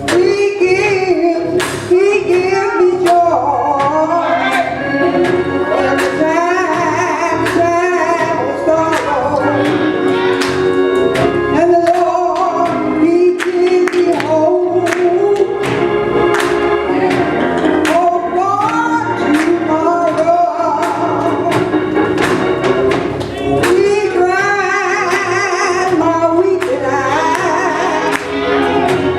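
Gospel music: voices singing over instrumental accompaniment with a steady beat.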